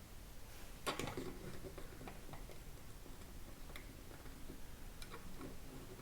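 Light clicks and taps of small plastic model-kit parts being handled, the loudest about a second in, then a few scattered smaller ones.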